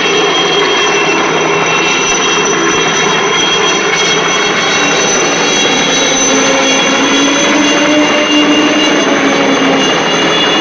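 Helicopter running steadily, heard from on board: a constant high whine over a broad engine noise, with a lower tone that slowly rises and falls.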